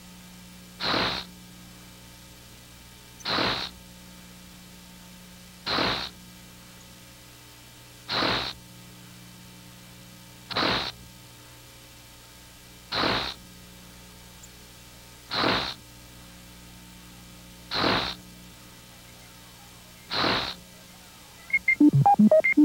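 Sound effect of a sliding puzzle tile moving: a short swish repeated nine times, about every two and a half seconds, over a steady low hum.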